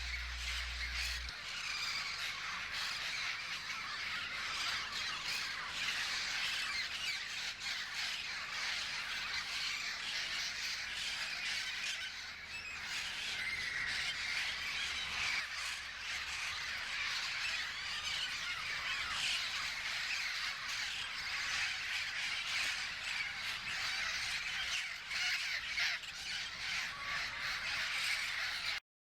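A flock of Amazon parrots squawking and calling continuously, many harsh overlapping calls at once. The sound cuts off suddenly near the end.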